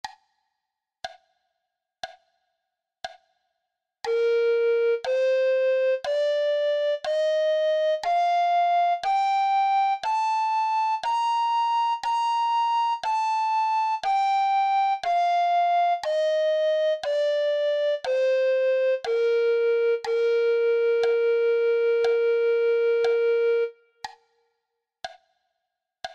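Four metronome clicks a second apart as a count-in, then the B-flat major scale in alto recorder tone, one note per click: up an octave from B-flat to B-flat and back down. The top B-flat is held for two beats and the final low B-flat for about four, with the clicks ticking on under the notes and after them.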